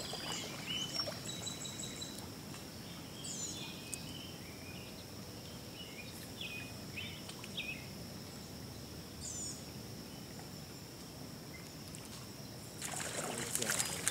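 Creek water running steadily, with scattered bird chirps and a thin steady high tone over it. Near the end a louder splashing at the surface: a hooked chub thrashing on the line.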